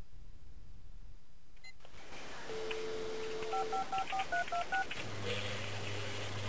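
Telephone dial tone for about a second, then a quick run of about eight touch-tone keypad beeps as a number is dialled. A low steady hum follows.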